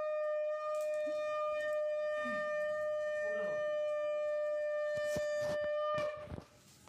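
Conch shell (shankha) blown in one long, steady note that ends about six seconds in, the ritual call sounded during the puja's fire offering.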